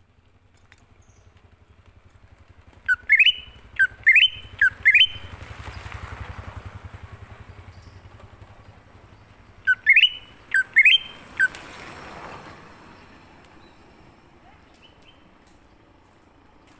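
Cucak ijo (green leafbird) calling: two runs of loud, sharp notes that each sweep upward, a few seconds apart. A low engine hum swells and fades behind them.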